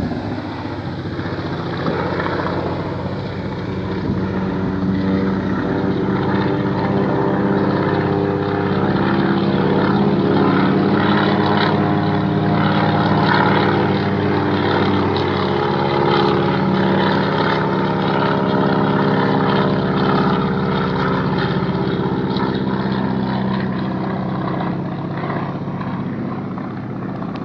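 Air Tractor AT-402 and AT-301 crop dusters flying low, their engines and propellers droning steadily. The sound swells as they pass close in the middle and fades as they move away.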